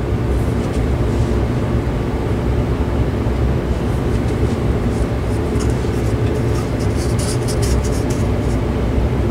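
Grants 1500-watt fan-forced heater running, its fan motor humming steadily with air rushing through the grille. From about four seconds in, a paper towel held in front of the grille rustles and flutters in the airflow.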